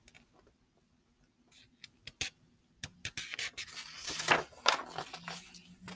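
Paper pages of a picture book being handled and turned: a few light clicks, then rustling and rubbing of paper for about three seconds.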